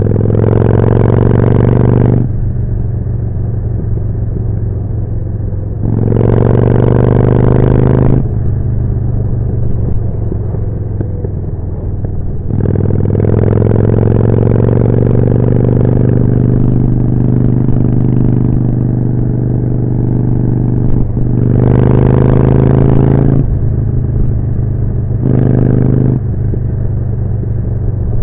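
Harley-Davidson Forty-Eight's 1200 cc V-twin engine through a Jekill & Hyde exhaust, pulling under throttle. It swells louder about five times, its pitch rising with each surge, and drops back to a lower, steadier note in between.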